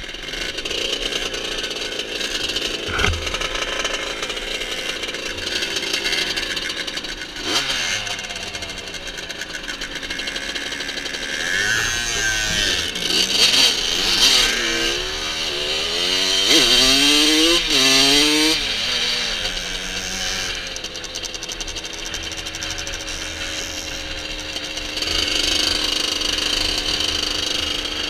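Moped engine running at idle, then revving in a series of rising sweeps as the moped pulls away and goes up through the gears, settling into steady running while riding along the road.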